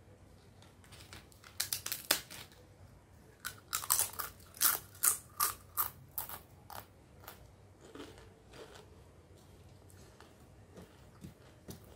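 Papad (crisp papadum) crunched and chewed: a quick run of sharp cracks from about a second in, loudest around four to five seconds, then quieter chewing.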